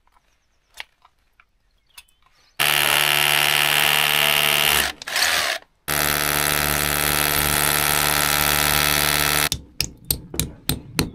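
A power drill boring fixing holes into a rendered masonry wall, in two runs of a few seconds each with a short break between. Near the end a hammer taps rapidly against the wall.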